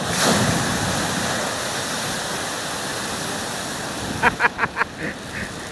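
A storm wave breaking over the harbour wall: a sudden rush of crashing spray and water that slowly dies away as the sea washes across the flooded quay.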